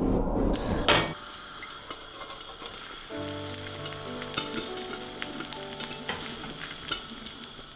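Food frying on a gas stove, sizzling and crackling; it starts suddenly about a second in as music cuts away, and soft steady tones join it about three seconds in.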